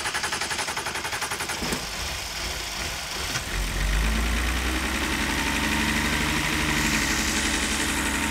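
BMW 330i's N52 straight-six being cranked by the starter with a fast regular pulsing, then catching about three seconds in and running steadily. The Valvetronic servo motor's wire is pulled off, in an attempt to make the servo calibrate itself on an engine that has been running badly.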